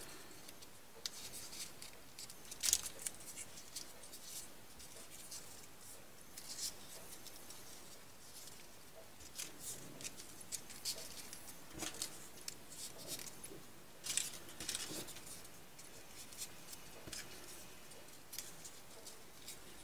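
Folded paper 3D origami units being slid onto one another and pushed into a ring by hand: faint, scattered paper rustles and light ticks, a little louder about three seconds in and again around fourteen seconds.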